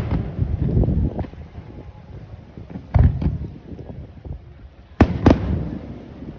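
Aerial fireworks shells bursting: a sharp bang about three seconds in and two more in quick succession about five seconds in, each trailed by a low rumbling echo.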